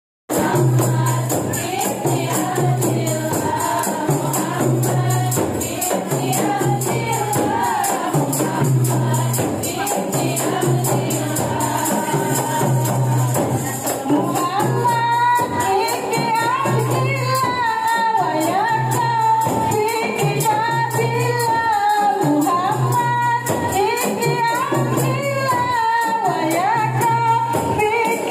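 A women's group singing together through a PA, with hand-held frame drums (rebana) and jingling tambourines keeping a steady beat. From about halfway, one lead voice stands out more clearly above the group.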